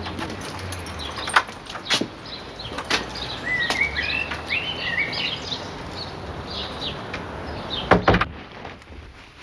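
Scattered footsteps, and a small bird chirping and warbling a few seconds in; near the end a wooden front door is pushed shut with a loud double thud.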